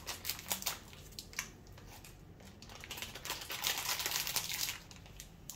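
Plastic snack bag crinkling as it is handled and opened, in two spells of dense crackling, the second starting about halfway through.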